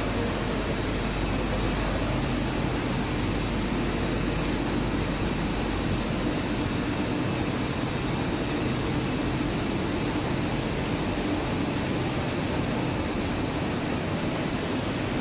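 Steady rushing noise of the industrial fans and machinery of a spray painting line, with a faint steady hum underneath.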